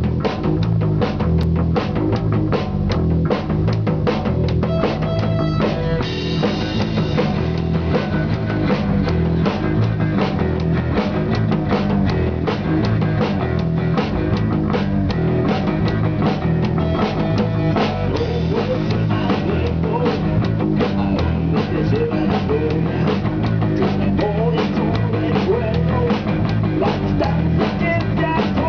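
Rock band playing live: a Pearl drum kit keeping a steady beat under guitar.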